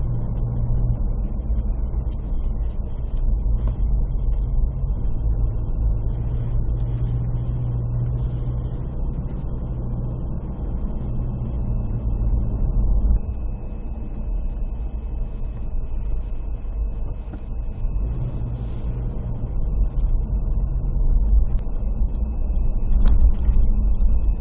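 A motor vehicle running on the road: a steady low engine and road rumble whose pitch wavers slightly as it goes.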